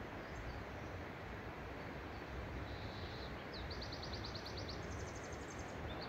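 A songbird sings a fast trill of about a dozen rapid notes a little past the middle, then a quicker, higher run of notes, over a steady rushing background noise.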